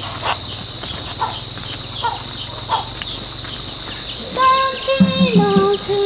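Rural outdoor ambience: a steady high insect drone with short chirping bird calls repeating every second or so. From about four and a half seconds in, a voice sings in long held notes that step down in pitch.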